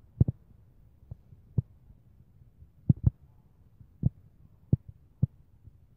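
Dull, low thumps at an uneven pace, about nine in six seconds, some coming in quick pairs, over a faint low hum.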